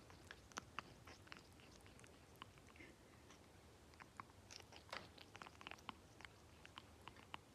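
African grey parrot eating shredded wheat: faint, irregular small clicks and crunches as its beak breaks up the cereal, a little busier about five seconds in.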